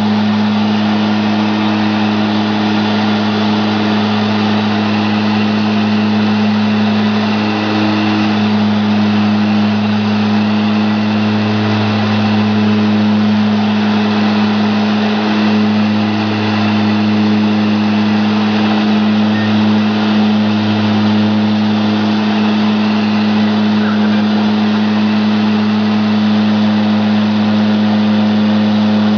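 Twin Garrett TPE331 turboprop engines and propellers of a Mitsubishi MU-2 at climb power after takeoff, heard inside the cabin: a loud, steady deep drone, with a fainter higher tone that fades in and out.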